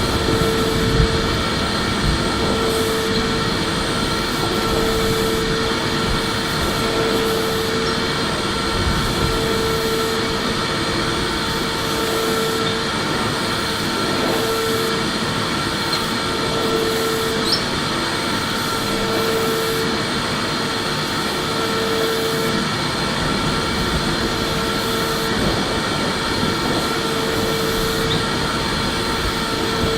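Electric vacuum cleaner running steadily: a loud, even rush of air with a high motor whine, and a lower hum that swells and fades about every two and a half seconds.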